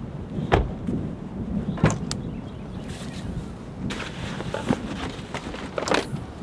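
Footsteps and a few sharp knocks and thumps as someone steps down from an SUV, then rustling and knocks of nylon gear bags being handled in the vehicle's cargo area.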